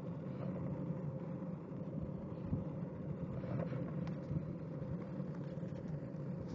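Longboard wheels rolling over asphalt: a steady low rumble, close-up, with a few small knocks along the way.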